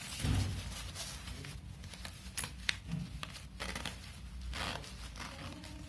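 Rynox Storm Evo L2 textile riding jacket being handled at the sleeve: fabric rustling and crinkling with the sleeve zip being worked, scattered small clicks, and a soft thump about a quarter-second in.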